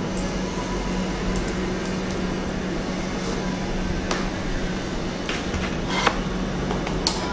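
Steady low hum of room noise, with a few light clicks and taps as the LED light strip and the acrylic panel of the light box are handled, the loudest about six seconds in.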